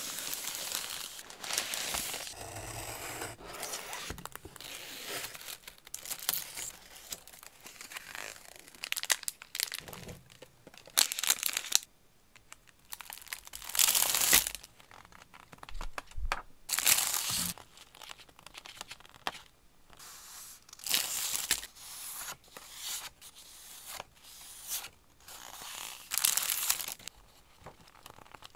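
Paper and plastic packaging rustling and crinkling: a kraft paper mailer torn open, then clear plastic sleeves of stickers and stacks of printed paper sheets handled and flipped. The sounds come in irregular bursts with short quiet gaps.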